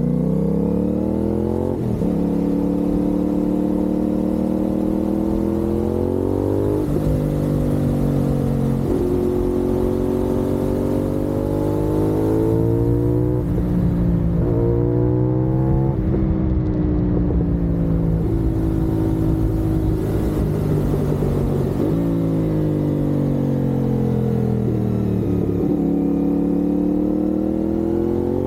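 CFMoto 450SS parallel-twin motorcycle engine under way, its pitch climbing under acceleration and then dropping sharply or falling away several times as the rider shifts and rolls off the throttle, with wind noise on the microphone.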